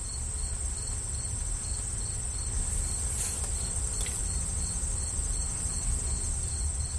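Insects calling: a steady high-pitched trill with a fainter chirp repeating two to three times a second, over a low outdoor rumble.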